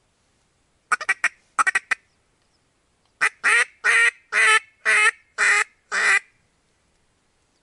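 Duck quacking, loud and close: two quick clusters of three short quacks, then a run of seven longer quacks in steady succession.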